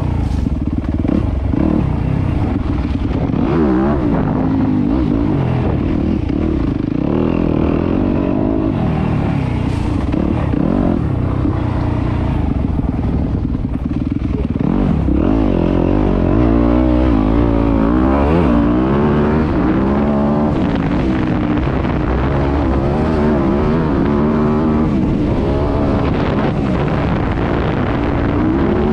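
Yamaha YZ250F motocross bike's four-stroke single-cylinder engine running hard, its pitch rising and falling again and again as the rider accelerates and backs off, with quicker swings in the second half.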